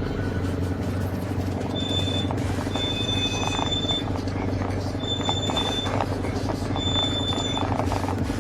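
Yamaha XJ600's air-cooled inline-four engine running steadily, a continuous low drone. Four brief high-pitched tones sound over it, the longest about a second.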